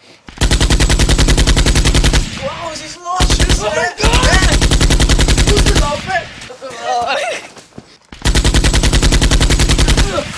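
Automatic gunfire in four long, rapid bursts. Voices shout between the bursts.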